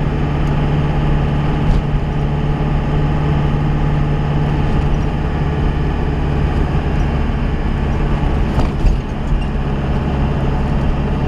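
Road vehicle running at cruising speed, heard from inside the cabin: a steady engine drone with a low hum over road and tyre noise. A brief knock comes about 2 seconds in and a louder one near the end.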